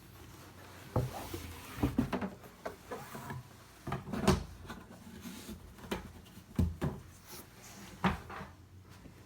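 A box or case being handled: a string of irregular knocks and bumps with rubbing between them, the loudest about four seconds in.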